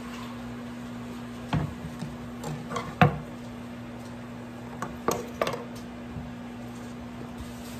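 Wooden cutting board knocking and clattering against a countertop as it is lifted and set back down: a few sharp knocks about one and a half to three seconds in, the loudest at three, and another cluster about five seconds in. A steady low hum runs underneath.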